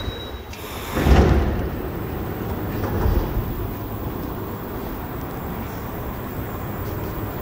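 Interior of a rubber-tyred Montreal Metro train: a steady low rumble with one sudden loud clunk about a second in.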